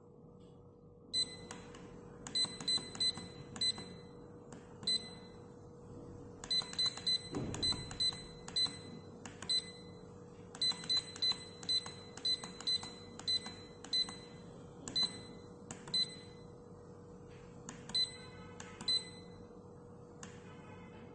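Digital alarm clock's electronic beeper giving short, high beeps as its buttons are pressed, about two dozen at irregular spacing, some in quick runs, each with a faint click. A faint steady hum lies underneath.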